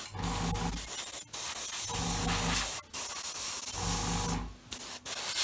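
Airbrush spraying in four bursts of hissing air, each with a low hum under it, broken by short pauses about a second and a half apart.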